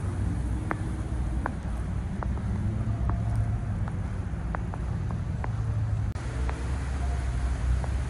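Footsteps in fresh snow, a light sharp tick about every half second to a second, over a low steady rumble.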